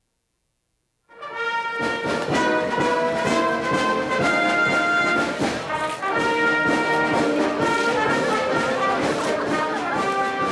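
After about a second of dead silence, a military brass band strikes up and plays a lively tune, with trumpets and trombones.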